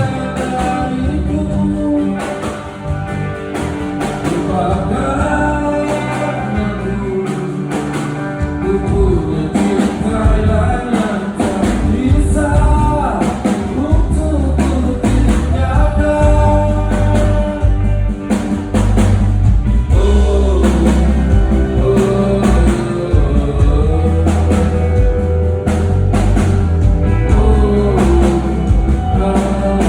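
Live pop-rock band playing through a PA, with a singer over drums, bass and guitar.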